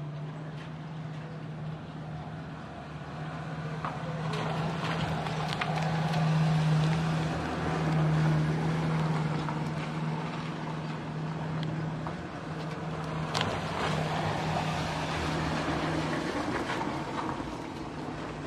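A motor hums at a steady low pitch, growing louder toward the middle and stopping about three seconds before the end. Under it come a few light clicks and rustles of wire mesh being tied by hand over a reed mat.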